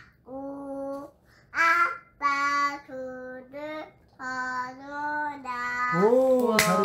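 A toddler singing a nursery rhyme into a toy microphone: a run of short, held, steady notes. Near the end hand clapping begins.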